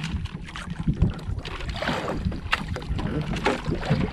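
Small boat on the water with wind on the microphone and a steady low rumble, broken by irregular light knocks and rustles as a fishing handline is hauled and handled.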